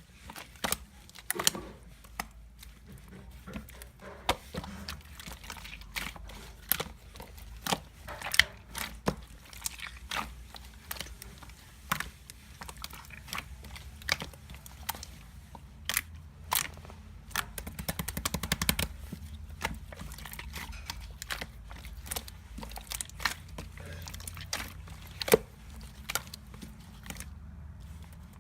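Slime being squished and pressed by hand, giving sharp, irregular clicks and pops, with a quick run of crackling about eighteen seconds in.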